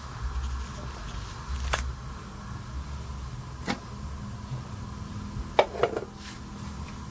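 Biogas stove burner running with a steady low hiss of the burning gas. Several sharp clicks or knocks cut in, one about two seconds in, one near four seconds and a quick pair near the end.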